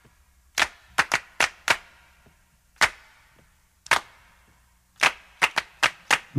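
About a dozen sharp clicks at uneven intervals, some in quick clusters of two or three, over a faint low hum.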